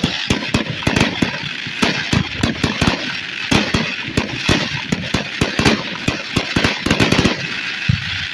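An aerial fireworks barrage: shells bursting in quick succession, several sharp bangs a second over a continuous crackling hiss. The bangs thin out near the end, leaving one last bang.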